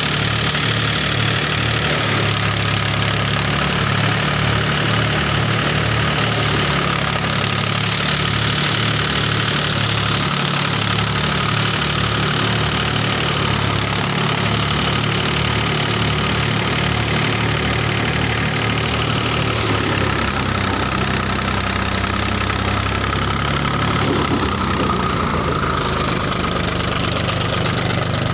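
Tractor-driven paddy thresher running: the Mahindra 275 DI tractor's diesel engine runs at a steady speed, with the threshing drum spinning and straw blowing out of the chute. The engine's low, even beat grows heavier about two-thirds of the way through.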